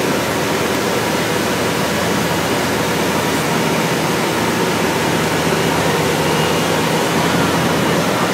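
The diesel power units of a Sarens self-propelled modular transporter run steadily: a loud, even rushing noise with a low hum underneath.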